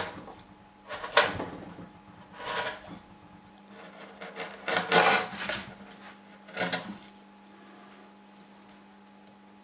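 A hand chisel paring the wall of a mortise in a softwood board: four scraping cuts, the longest about five seconds in, over a faint steady hum. A sharp knock right at the start.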